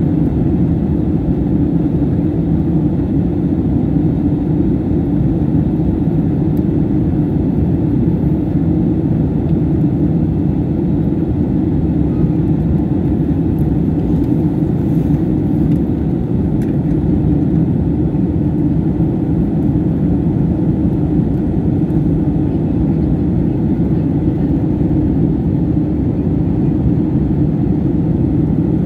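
Steady, deep drone inside an airliner's cabin in flight: engine and airflow noise, unchanging throughout.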